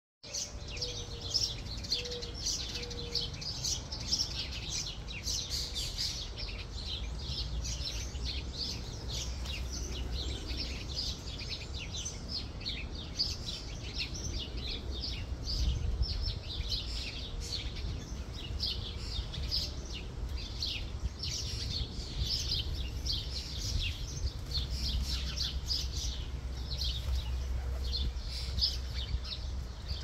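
Many small songbirds chirping and twittering almost without pause, short high notes crowding over one another, over a steady low rumble.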